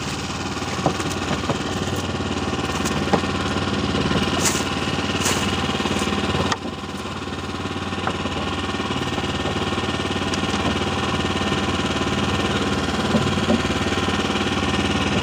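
A fishing boat's engine running steadily with a knocking beat, with a few sharp clicks and splashes as a fishing net is hauled by hand over the side.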